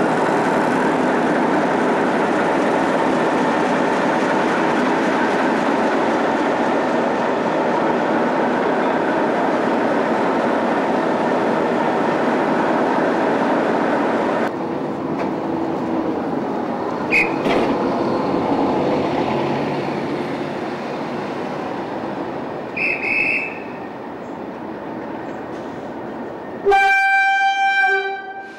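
Class 37 diesel locomotive's English Electric V12 engine idling steadily, loud and close. Two short high whistles sound in the middle, and near the end the locomotive's horn gives one blast of about two seconds.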